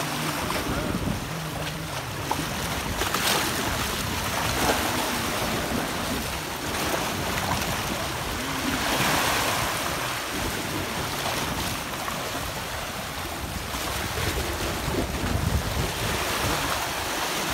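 Sea surf washing on the shore, rising and falling every several seconds, with wind buffeting the microphone.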